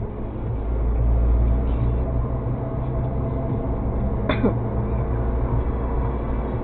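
Suzuki Jimny JB74's 1.5-litre four-cylinder engine running under way with road noise, heard inside the cabin as a steady low drone that swells slightly about a second in. About four seconds in, a short high tone slides quickly down in pitch.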